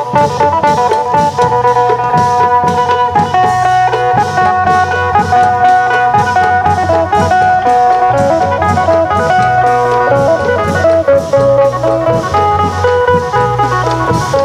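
Isan phin, a plucked lute, playing a fast, busy melody over the steady beat of klong yao long drums: Isan long-drum procession music.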